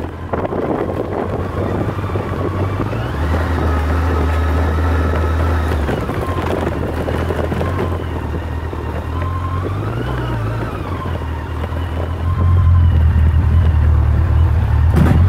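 Yamaha FJR1300's inline-four engine running as the motorcycle rides a dirt track, its pitch rising and falling with the throttle, with wind buffeting the microphone. It gets louder about twelve seconds in.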